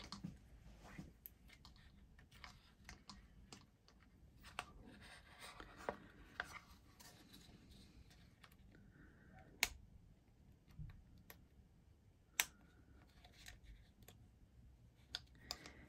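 Faint handling of metal brads and mat-board pieces, mostly light rustling and scraping with scattered small clicks, two of them sharper in the second half.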